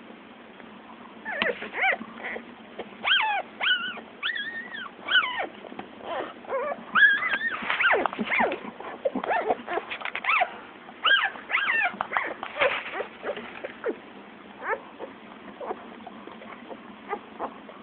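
Day-old shih-tzu puppies squeaking and whimpering in a quick string of short, high cries that rise and fall in pitch. The cries thin out to a few scattered squeaks after about 13 seconds.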